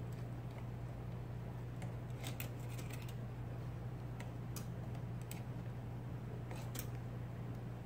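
IBM Selectric golf-ball electric typewriter with its motor humming steadily, and a scattering of sharp, irregular clicks from its typing mechanism, with a quick run of them about two to three seconds in.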